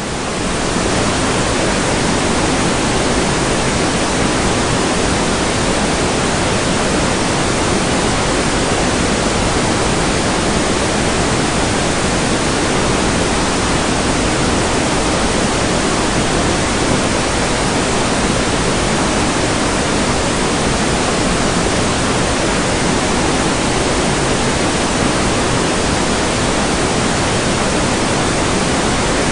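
Heavy rain: a loud, steady, even hiss and rush of downpour with no single drops or changes standing out.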